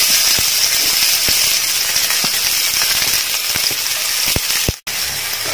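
Chopped onion sizzling in hot oil in a frying pan with tempered mustard and fennel seeds: a steady sizzle with scattered sharp pops. The sound breaks off for an instant near the end.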